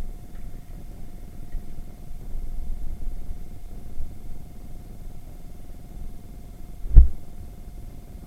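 Low rumble of a small 110cc moped ride picked up by an action-camera microphone, mostly wind buffeting with a faint steady engine hum. A single sharp thump about seven seconds in is the loudest moment.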